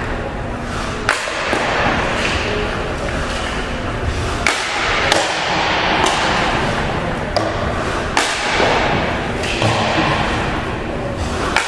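Ice hockey pucks being shot at a goaltender: a series of sharp cracks, one every second or so, over a steady rink hum.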